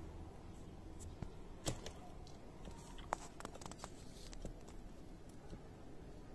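Faint room tone: a steady low hum with a scattering of small clicks and ticks. The sharpest comes about a second and a half in, and a quick cluster follows a little past three seconds in.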